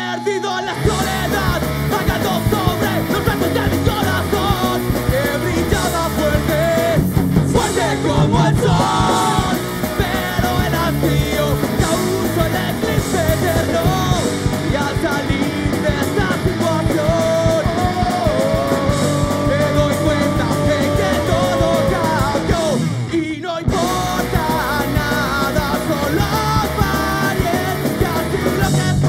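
Punk rock band playing live: shouted vocals over distorted electric guitar, electric bass and drums. The full band comes in at the start, and there is a short stop about three-quarters of the way through.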